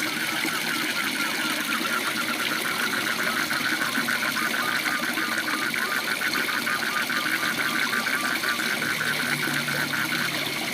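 Steady rush of a waterfall with a frog calling over it in a fast pulsed trill, several pulses a second, starting a couple of seconds in and stopping near the end.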